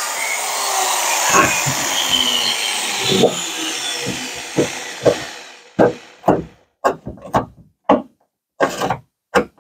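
A corded electric drill runs and fades out over the first few seconds. Then come short scrapes and clinks, about two a second, as a bolt is worked by hand in a truck-bed mounting hole.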